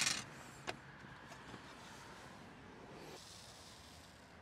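Handling of a metal rack of glass jars: a knock at the start that rings off briefly, a sharp click a little later and a few faint ticks, then a soft hiss.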